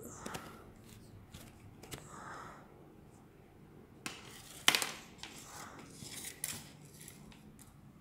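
Plastic clicking and sliding of a telescoping toy light-up sword as its nested blade segments are pulled out by hand, with a sharp click nearly five seconds in and a few more clicks after it.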